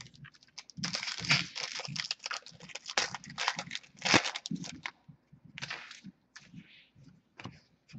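Foil wrapper of a hockey card pack being torn open and crinkled by hand: a dense crackling for about four seconds, then a few shorter crinkles near the end.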